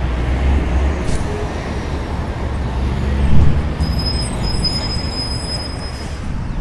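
Urban ambience dominated by the steady low rumble of a passing light-rail train. About four seconds in, a thin high tone is added for roughly two seconds.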